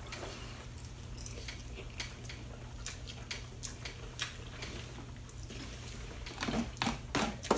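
Quiet eating at a table: forks clicking and scraping in plastic containers of noodles, with noodles being slurped and a few louder slurps or clinks near the end, over a steady low hum.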